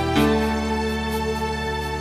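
Instrumental part of a karaoke backing track: sustained chords changing just after the start, over a soft tick about twice a second.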